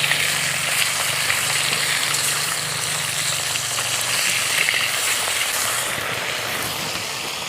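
Pieces of rohu fish sizzling steadily in hot oil in a karai as their second side fries.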